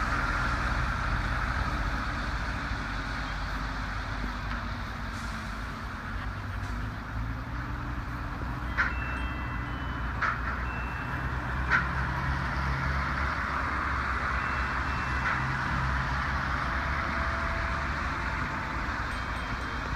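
Steady urban and construction-site background: a heavy engine running under a hum of road traffic. There are three sharp knocks near the middle and a few short, high beeps.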